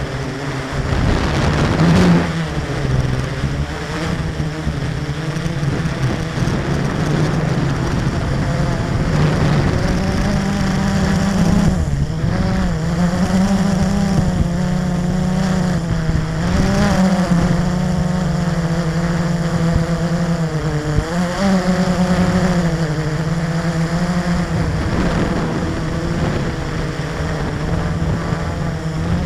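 E-flite 350QX quadcopter's four brushless motors and propellers whirring, heard from the camera on board, their pitch wavering up and down as the throttle changes. A brief louder rush of noise comes about two seconds in.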